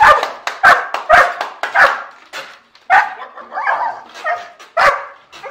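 Large dog barking repeatedly, about two barks a second.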